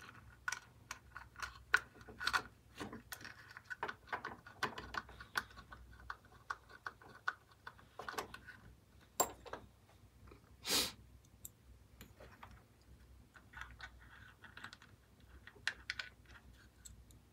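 Irregular small plastic clicks, taps and rubs as an amplifier circuit board and its wires are handled and fitted inside a small plastic speaker case, with one louder brief scrape about eleven seconds in.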